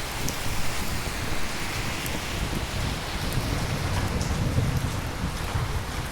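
Steady heavy rain hissing, with scattered sharp drop hits. A low rumble of distant thunder swells about halfway through and fades before the end.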